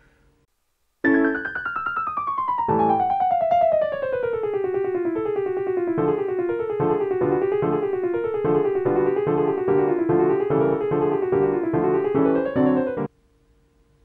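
Keyboard music with a piano sound: a long falling run of notes, then quick repeated notes moving up and down, starting about a second in and cutting off suddenly about a second before the end.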